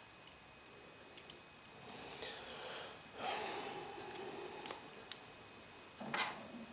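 Small sharp clicks and taps from handling tiny phone parts and tools, with a couple of audible breaths or sniffs in between, the louder one about three seconds in.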